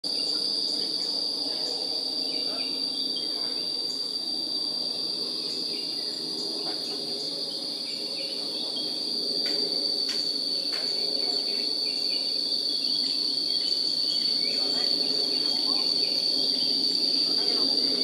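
Insects trilling in one steady, unbroken high-pitched drone.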